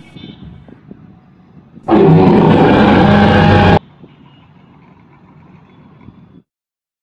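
A loud dinosaur-roar sound effect, about two seconds long, that starts and cuts off abruptly over low outdoor street background. Near the end the audio drops out to dead silence.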